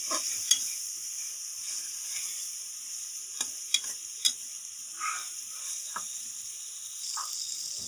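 Boiled mutton pieces frying in oil with browned onions and garam masala in a metal pan, sizzling steadily. A slotted metal spoon stirs them, scraping and knocking against the pan a few times, most of them around the middle.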